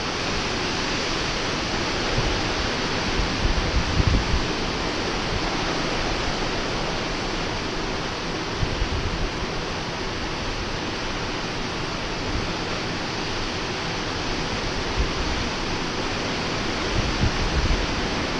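Hurricane wind blowing in a steady rushing hiss, with low rumbling buffets of gusts hitting the microphone about 4 and 9 seconds in and again near the end.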